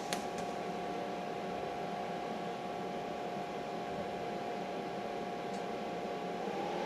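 Diesel air heater's blower fan running on after shutdown to cool the unit, with its fuel already cut off: a steady whine over a rush of air. Near the end the whine steps up in pitch and gets a little louder as the fan speeds up again to keep the heater cool.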